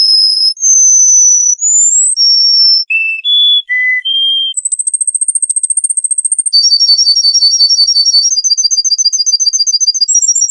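A songbird singing: a string of clear whistled notes, each held about half a second and jumping between high and lower pitches, then from about halfway in a long run of fast repeated notes, like a trill.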